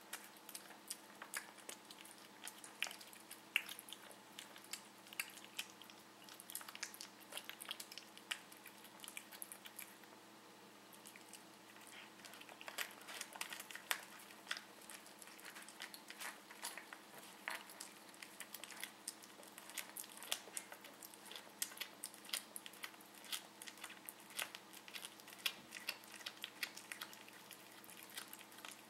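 Siamese cat chewing and crunching a meadow vole: many quick, irregular crunching clicks, which ease off briefly about ten seconds in.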